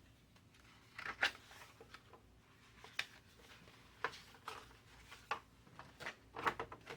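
Paper pages being handled: a scattering of short, soft rustles and taps.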